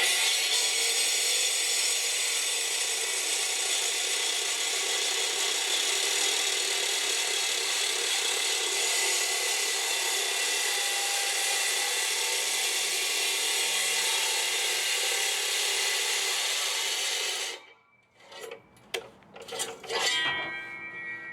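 Power saw running steadily through a long cut, stopping abruptly about three seconds before the end, followed by a few knocks and clatter.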